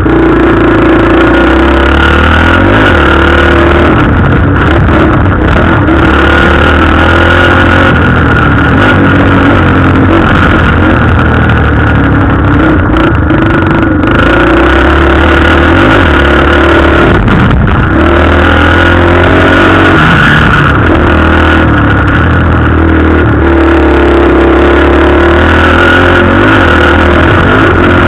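Motocross dirt bike engine, loud and continuous, revving up and dropping back again and again as it is ridden hard around the track.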